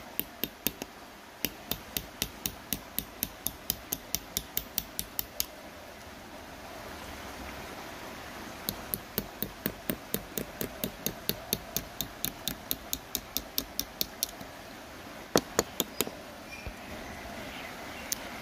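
Small hammer tapping the spine of a knife blade to drive it through a young tree's bark, cutting out a strip for a graft: quick sharp taps, about four a second, in two long runs, then a few harder strikes near the end.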